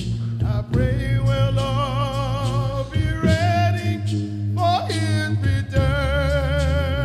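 Gospel song: a solo voice holds long notes with vibrato over a steady low accompaniment, sliding briefly upward about two-thirds of the way through.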